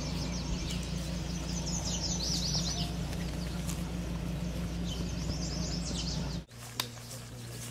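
Small songbirds chirping in a few quick runs of high calls over a steady low outdoor background hum. The hum cuts off abruptly near the end, leaving a quieter background.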